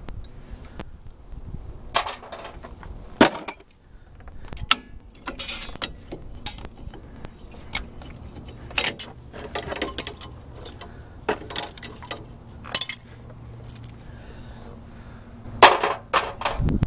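Rear drum brake shoes, return springs and hold-down hardware being worked off the backing plate with hand tools: scattered metallic clinks, jangles and clicks, with a few sharper knocks.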